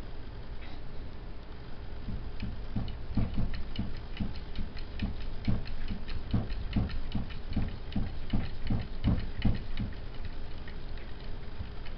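A cat's paws patting rapidly against a mirror: a quick run of soft taps with a light click in each, about two or three a second, starting about two seconds in.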